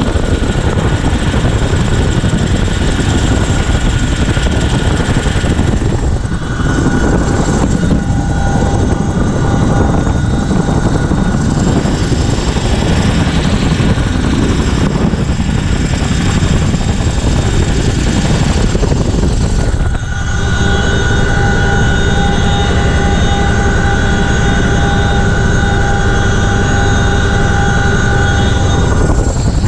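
CH-47F Chinook's tandem rotors and twin turboshaft engines running loud and steady in a low hover, with rotor-wash rushing over the open crew door. About two-thirds through the rushing drops away and a steady whine of several tones stands out, heard from inside the cabin.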